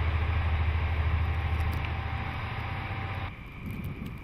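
DD14 rotary snowplow locomotive working close by: a deep, steady diesel engine sound under a dense rushing noise of the rotary blower throwing snow. The sound stops abruptly about three seconds in, leaving a much quieter background.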